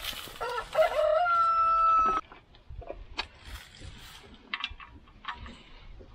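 A rooster crows once: a long call that rises, then holds steady for over a second and cuts off abruptly. After it come a few light clicks and knocks.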